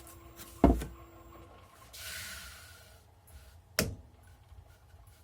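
Two sharp knocks about three seconds apart, with a short hiss between them.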